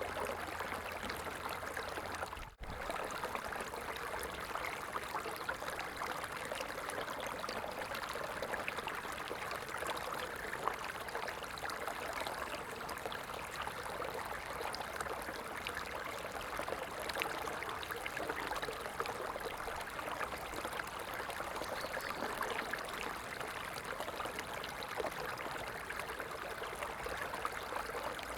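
Running water flowing steadily with an even rushing and trickling sound. It cuts out for an instant about two and a half seconds in.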